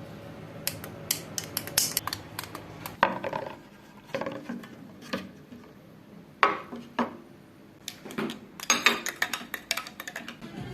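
Kitchen containers and jars being handled and set down, making a run of sharp clinks and knocks in uneven clusters. A low hum sits under the first few seconds.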